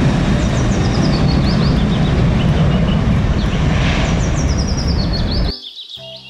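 Boeing 737-900ER's CFM56-7B jet engines running loud and steady as the airliner rolls along the runway, with high chirps over it; the sound cuts off suddenly about five and a half seconds in.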